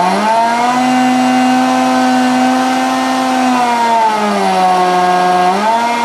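Semak 1390 power blender motor running loud, its pitch climbing in the first half second as the speed dial is turned up, dropping somewhat after about three and a half seconds and rising briefly again near the end. The blades spin without pulling the large raw pumpkin chunks down, getting no traction.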